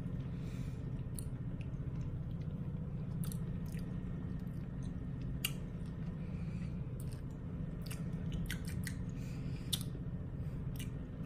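A person chewing a soft, creamy frosting-filled white chocolate candy bar with the mouth closed, with irregular small clicks. A steady low hum runs underneath.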